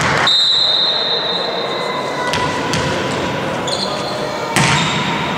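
Volleyball bouncing on a sports-hall floor as a player readies to serve, with a sharp hit about four and a half seconds in. A long, high, steady tone sounds for about two seconds near the start.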